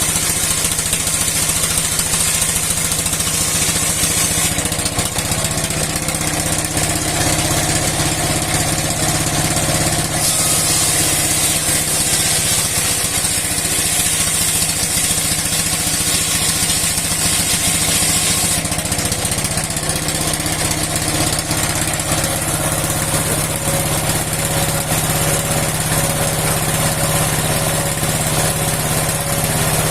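An old stationary engine running steadily, driving a steel sawmill blade. A high hiss grows louder for several seconds in the middle.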